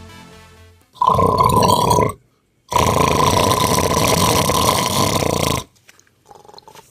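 A person snoring: two loud snores, the first about a second long and the second about three seconds long, with a short silent breath between.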